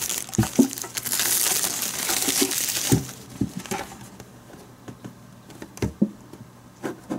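Plastic shrink-wrap crinkling for the first few seconds as it is peeled off a metal trading-card tin, followed by scattered light knocks and clicks as hands handle the tin and work its lid loose.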